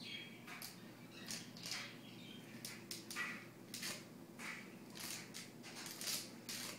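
About a dozen short, breathy puffs of air, unevenly spaced, blown through a noiseless party blowout.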